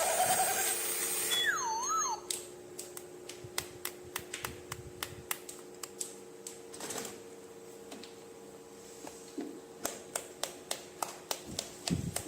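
Small plastic toy pieces clicking and tapping as they are handled, with sharp, uneven clicks a few times a second over a faint steady hum. Music with a wavering whistle-like glide plays for the first two seconds and stops.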